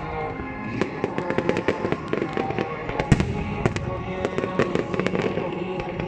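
Aerial firework shells bursting in quick succession, many sharp bangs, the loudest about three seconds in, over the display's accompanying music.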